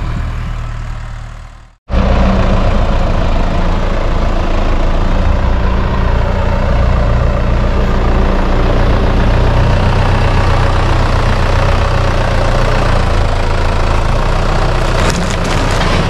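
Farm tractor engine running steadily and loud, working a front-end loader, with a brief gap about two seconds in and a few knocks near the end.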